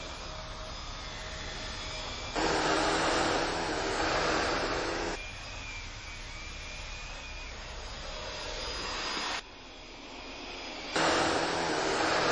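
Upright vacuum cleaner motor running with a steady whooshing whine. The level jumps up and down abruptly several times, loudest a couple of seconds in and again near the end.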